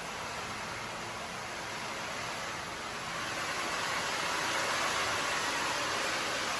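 Water spraying from a micro-hole twisting shower head, a steady hiss that grows a little louder after about three seconds. The spray is weak and widely spread.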